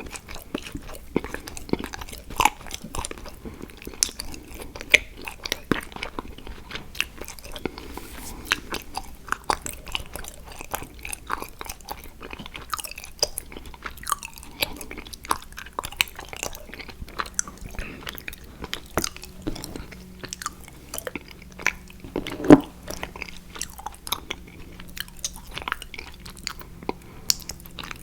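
Close-miked chewing and biting of an edible chocolate picture frame: a dense run of crunches and small cracks, with one much louder crack about three-quarters of the way through.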